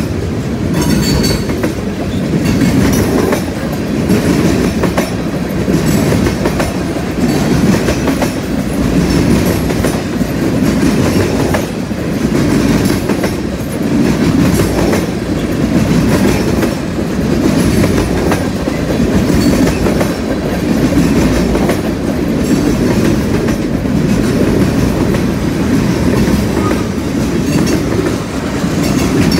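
Freight train cars rolling past at close range: a steady low rumble that swells and eases every couple of seconds, with wheels clicking over rail joints and the junction switch.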